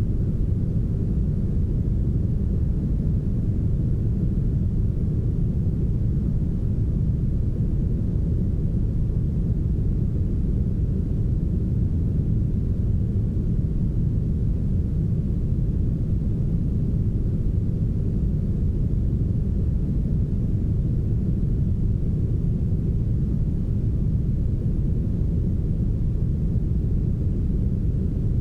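Steady, smoothed brown noise: an even, deep rumbling hiss with almost no high end, unchanging throughout.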